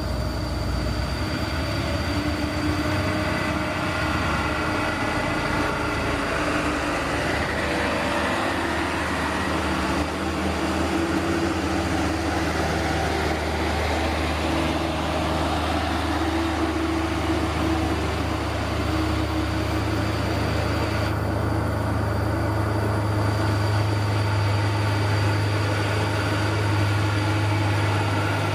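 Radio-controlled model excavator running, a steady mechanical drone that goes on without a break.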